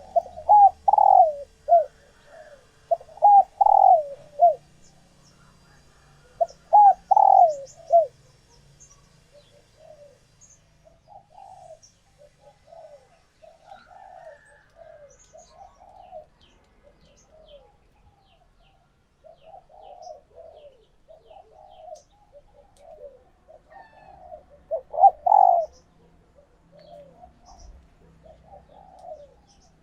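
Hen spotted doves cooing in soft repeated runs. The loudest, closest calls come in the first eight seconds and again about 25 seconds in, with fainter cooing between. These are the calls of hens in laying condition, the kind used to stir cock birds into cooing. Faint high chirps sound in the background.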